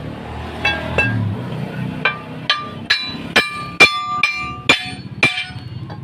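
Hammer blows on a steel punch set against the leaves of a Toyota Dyna 130HT truck's front leaf spring as the spring pack is taken apart. There are about ten sharp metallic strikes, roughly two a second, and the steel rings briefly after each one.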